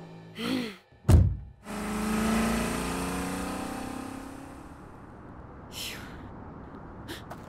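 Film soundtrack sound design: a sharp, deep impact hit just after a second in, followed by a long sustained tone with several pitches held together that slowly fades away.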